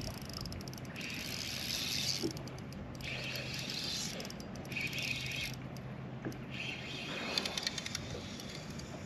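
Spinning reel cranked in four short spurts of whirring and clicking as a lure is retrieved. A low steady hum sounds underneath and stops about seven seconds in.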